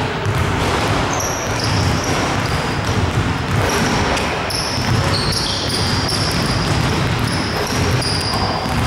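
A basketball bouncing on a hardwood gym floor as a player dribbles, over a steady hall noise, with short high squeaks of sneakers on the court.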